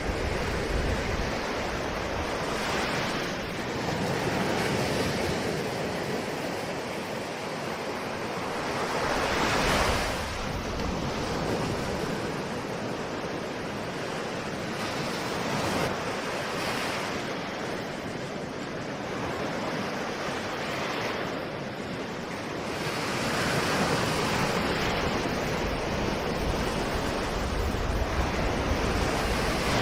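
Ocean waves breaking on a shore, the surf rising and falling in a surge every few seconds, with some wind on the microphone.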